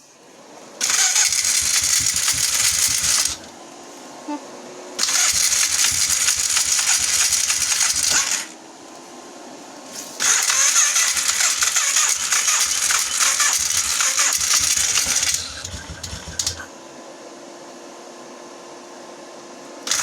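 Starter cranking the four-stroke engine of a 2003 Polaris quad on a cold start, in three long attempts a few seconds apart. Each attempt stops abruptly and the engine does not catch.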